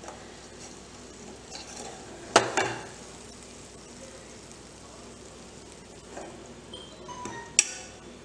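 Metal spoon clinking against a steel serving bucket of dal as hot tadka is spooned on top: a sharp clink with a short ring about two and a half seconds in and another near the end, with softer knocks between, over a faint steady hiss.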